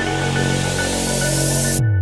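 Electronic dance music with a steady beat and a swelling hiss building up; near the end the high end cuts out and a bass note slides down, leading into a drop.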